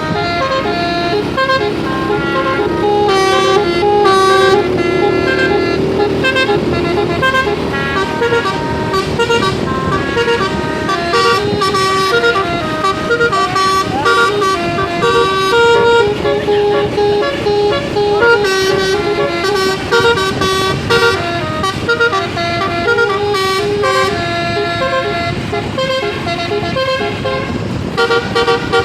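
Bus 'basuri' telolet horn, a 12-note roof-mounted air-horn set, playing a fast tune note after note. A lower held tone sounds under it in the first few seconds.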